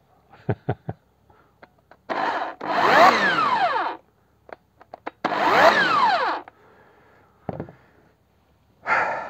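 Parkside PKS 2200 A1 electric chainsaw's motor switched on twice. Each time its whine climbs as the soft start brings it up to speed, then falls away as it runs down after the switch is released. A few clicks come before the first run, and a shorter burst comes near the end.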